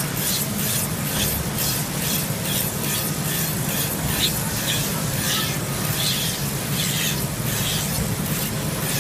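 Handheld rotary mink skin trimmer running with a steady hum, its spinning ring blade scraping fat off a mink pelt in rhythmic rasping strokes, about two a second.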